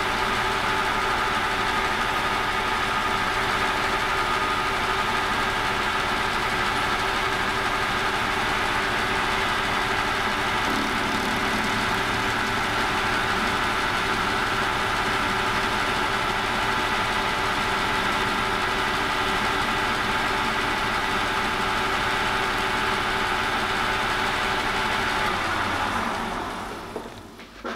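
Metal lathe running at steady speed while a turning tool cuts a small steel pin, with a steady motor and gear whine. Near the end the lathe is switched off and winds down, its whine falling in pitch as it slows.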